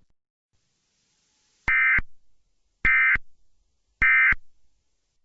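Emergency Alert System end-of-message data tones: three identical short bursts of digital code, each about a third of a second long and a little over a second apart, starting a couple of seconds in. The three bursts signal the end of the alert.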